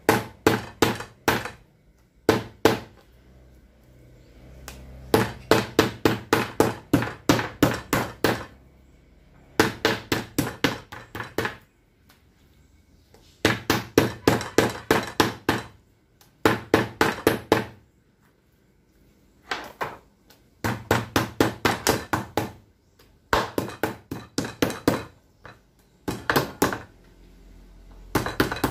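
Metal meat mallet pounding pieces of beef on a cutting board to tenderize them: runs of quick blows, about four or five a second, broken by short pauses.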